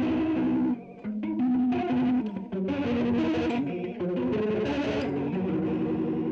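Electric guitar chords through a Donner Jet Convolution Flanger pedal, the held notes wavering with the flanger's sweep, played for an organ-like tone. The chords change every second or so, with a short gap just before the one-second mark.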